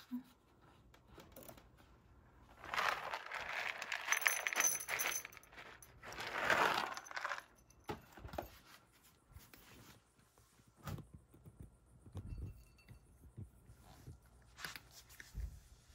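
Cat food rattling into a ceramic bowl in two pours, about three and six seconds in. Then a cat eats from the bowl, with scattered small clicks and knocks.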